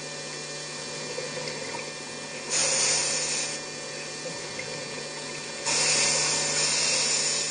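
Scuba regulator underwater: two bursts of exhaled bubbles about three seconds apart, over a steady low hum.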